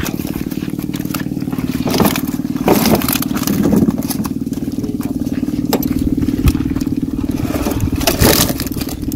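An engine runs with a steady hum. Over it come rustling and scraping as mesh keep nets holding caught fish are handled and set down in a pickup truck bed, loudest about two to four seconds in and again about eight seconds in.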